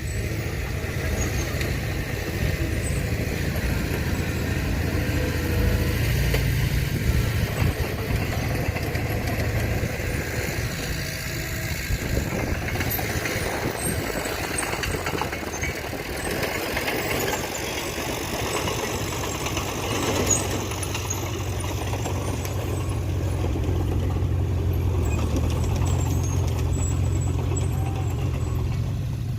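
Heavy earthmoving machine's diesel engine running steadily with a low drone. The drone swells in the first few seconds and again near the end as the load changes.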